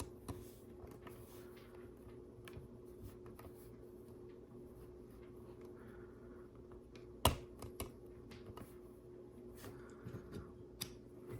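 Plastic LEGO bricks being handled and pressed together: scattered faint clicks and light rattles, with one sharper click about seven seconds in and a few more near the end, over a faint steady hum.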